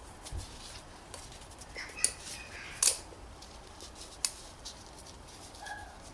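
Sharp clicks and taps of the plastic oil filter housing cap and new filter element being handled, with three louder clicks about two, three and four seconds in.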